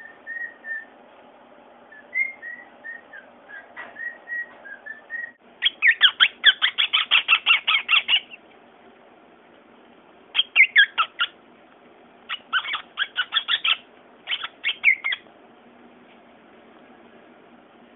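A pet bird whistles a run of short, clear notes. Then a cockatiel chatters in four loud bursts of rapid, sharp chirps, the first and longest about two seconds long.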